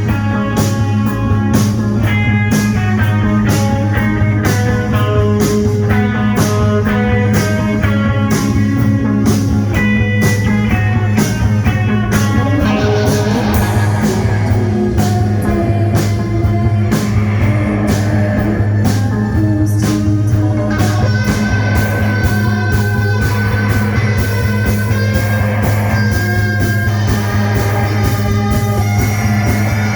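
Rock band playing: a steady drum beat over a held, droning bass note, with guitar melody lines above.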